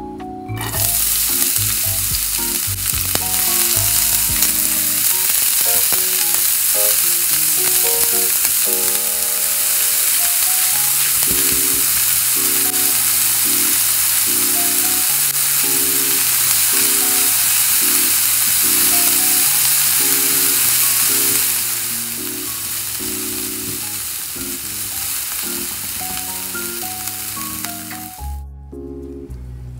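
Diced onion and green bell pepper sizzling in hot olive oil in a nonstick frying pan, a steady frying hiss over soft background music. The sizzle starts suddenly about a second in, eases somewhat after about twenty seconds, and cuts off just before the end.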